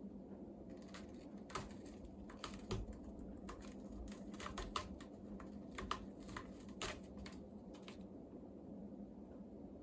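Cat clawing a scratching pole freshly wrapped in hemp twine: a dozen or so irregular short rasping strokes over several seconds.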